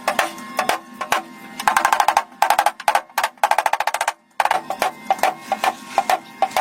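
Sharp repeated tapping impacts: scattered single knocks and two fast runs of rapid strikes, like a drum roll, with a brief pause about four seconds in.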